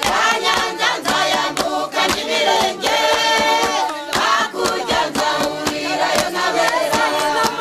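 A crowd singing a Rwandan dance song together, with steady rhythmic handclapping.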